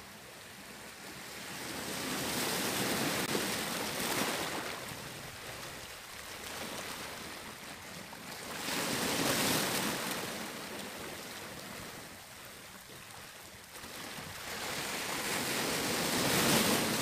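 Sea surf washing and breaking on a rocky shore, the rush of water swelling loud three times, about every six seconds.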